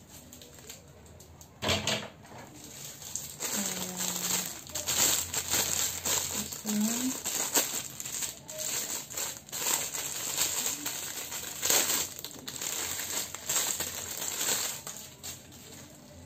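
Clear plastic wrapping crinkling and rustling as a ring light's parts are unwrapped and handled. Sharp light clicks and knocks of small parts run through it, starting about two seconds in.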